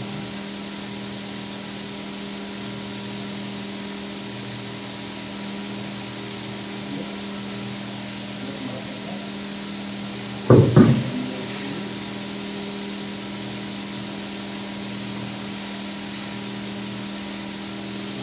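Steady electric hum of a small furnace blower motor. About ten seconds in comes a short clatter of wooden knocks as a wooden casting pattern is dropped onto the floor.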